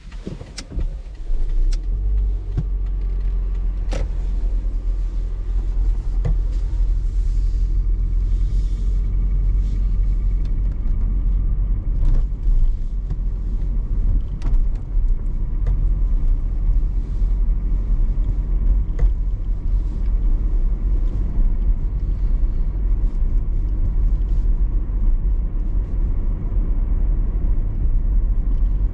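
A car being driven: a steady low rumble of engine and road noise, with a few sharp knocks scattered through.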